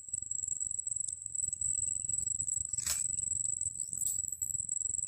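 Insects calling in one steady, high-pitched note, with a low rumble of handling noise underneath and a single sharp click about three seconds in.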